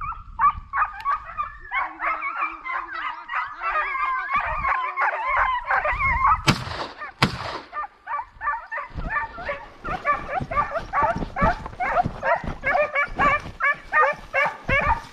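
Several hunting hounds baying and yelping in quick, overlapping cries, the way hounds give tongue on a hare's trail, with one deeper drawn-out voice among them for a few seconds. Two brief bursts of noise cut across them about halfway through.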